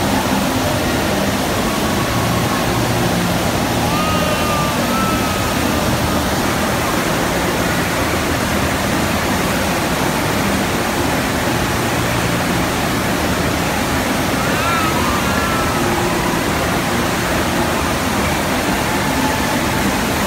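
Steady, loud rush of water from a sheet-wave surf simulator, a thin layer of water jetted up a padded slope with a bodyboarder riding on it.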